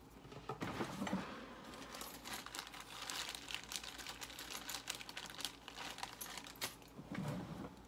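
Faint, irregular rustling and small clicks from handling a thin card wad and a plastic shotshell hull as the card is fitted over the buckshot load before roll-crimping.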